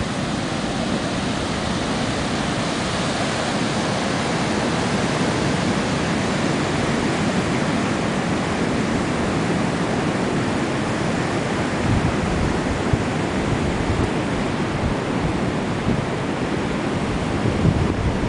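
Ocean surf breaking on the shore, a steady rush of waves, with wind buffeting the microphone in gusts that grow stronger in the second half.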